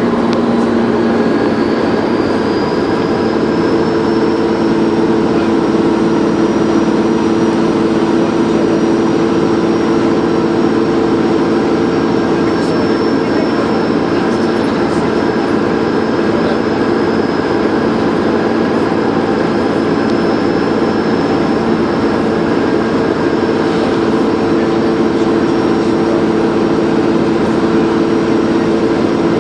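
Dennis Trident 2 double-decker bus engine running steadily under way, with a high turbocharger whistle that rises in pitch over the first few seconds and then holds.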